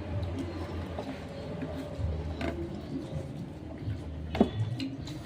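Wet eating sounds from chewing food, over a steady low hum, with two sharp clicks: one about two and a half seconds in, the louder one near the end.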